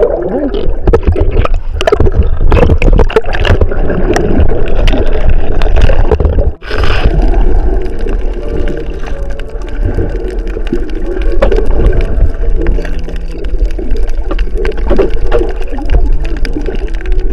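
Water gurgling and sloshing close to the microphone, with heavy low rumble and many small clicks and knocks.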